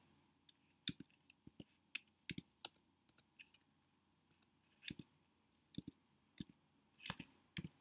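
Faint, slow, irregular tapping of computer keyboard keys: single keystrokes through the first three seconds, a pause of nearly two seconds, then a few more spaced taps.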